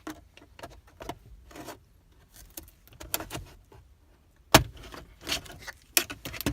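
Plastic car interior trim panel being pried off with a pry tool: a series of clicks and rattles, with a loud snap about four and a half seconds in as a retaining clip lets go.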